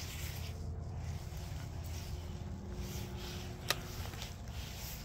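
Handling noise from an ultralight spinning rod and its line over a steady low rumble, with one sharp click about three and a half seconds in.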